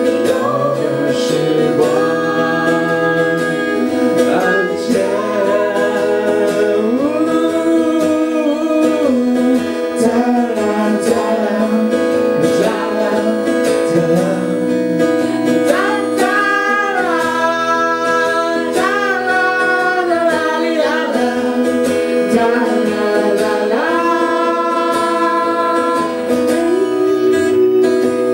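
Music: a woman singing with a strummed acoustic guitar accompaniment.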